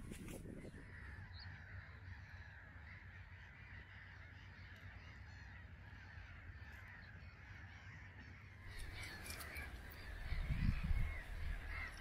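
Birds calling over a marsh pool, many short calls overlapping, over a low rumble. About three-quarters of the way through come a few louder low thumps and rustles.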